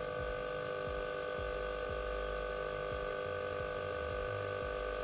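Small air compressor inside an electric scent diffuser machine running, a steady hum made of several fixed tones.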